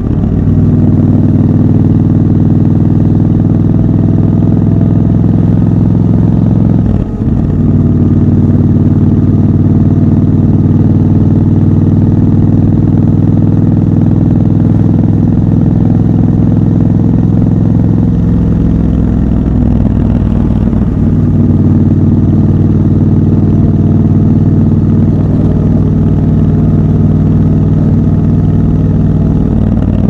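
Triumph Scrambler 1200 XC's 1200 cc parallel-twin engine running loud and steady under way. The note breaks briefly about seven seconds in and shifts again about two-thirds of the way through.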